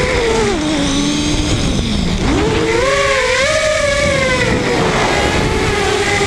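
Electric motors and propellers of a small FPV multirotor heard from the onboard camera, a steady whine that drops sharply in pitch as the throttle is cut, then climbs again about three seconds in as the throttle comes back up, with a rushing noise under it.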